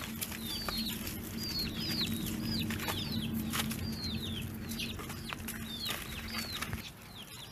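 Young chickens peeping: short, high calls that each drop sharply in pitch, about two a second, over a steady low hum that stops near the end.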